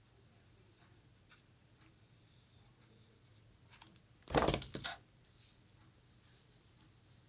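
Plastic hot glue gun set down on a lace-covered table, a short clatter of a few knocks about four seconds in; otherwise faint handling sounds of lace being pressed down.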